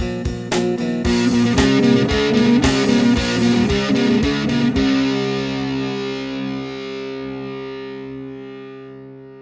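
Music: electric guitar with distortion over sharp, regular beats, stopping about five seconds in on a held chord that slowly fades.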